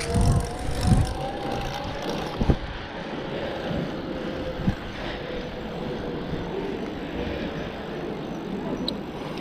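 Electric bike riding along pavement: a thin, steady whine from its electric motor as it picks up speed, fading out later, under wind noise on the microphone with a few low thumps in the first five seconds.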